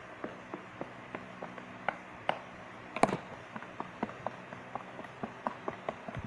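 A series of light, irregular taps and clicks, with one louder knock about three seconds in.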